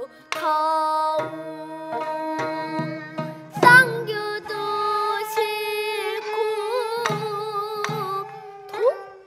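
A young girl singing a slow changgeuk song in pansori style, with long held notes that waver in pitch, over traditional Korean instrumental accompaniment punctuated by a few single drum strokes.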